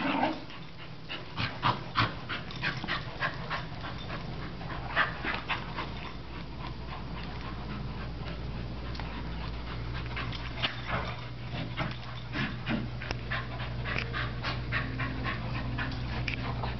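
Two dogs, a Weimaraner and a smaller black-and-tan dog, playing tug-of-war with a rope toy: panting, with many short irregular scuffs and clicks as they pull and shift on the carpet.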